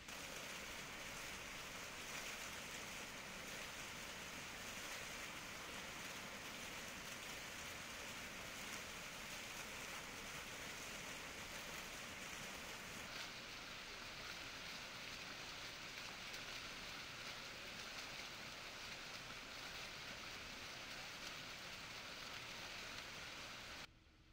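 Steady hiss of running or spraying water, even and unbroken, cutting off suddenly near the end.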